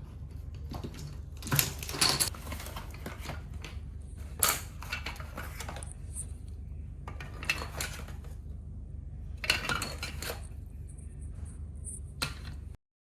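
H5 Domino Creations plastic dominoes clacking against each other in about six short bursts of clicks, over a steady low hum. The sound cuts off suddenly near the end.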